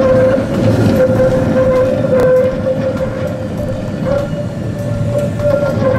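Tatra KT4D articulated tram running past on its rails and moving off round a curve, wheels rolling on the track. A steady tone is held throughout, and the noise eases off near the end as the tram draws away.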